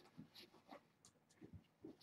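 Near silence with a handful of faint soft knocks and rustles spread across the two seconds, from kittens scuffling on a rug and a person moving about.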